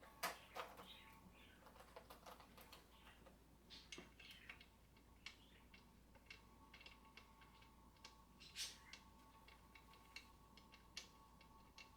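Faint scattered clicks and light taps of metal chair parts and screws being handled: the office chair's tilt mechanism being positioned on the seat base while its M8 screws are readied. A faint steady high tone runs underneath from about four seconds in.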